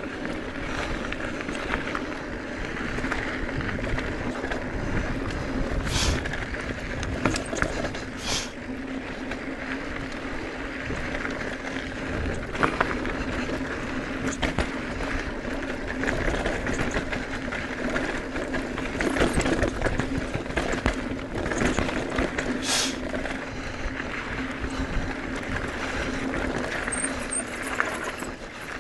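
Wind buffeting the microphone over the rattle and crunch of moving along a rough dirt trail, with a steady low hum and sharp clicks now and then.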